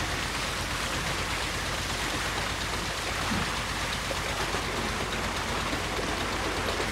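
Tube-well water gushing from an outlet pipe and splashing down onto a dog and into a brick water tank, a steady rushing splash, sprayed wide at times by a hand held over the pipe's mouth. A steady low hum runs underneath.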